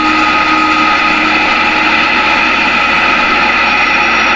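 Hornby OO-gauge model locomotive running on its track: a steady whir of the small electric motor mixed with wheel-on-rail noise.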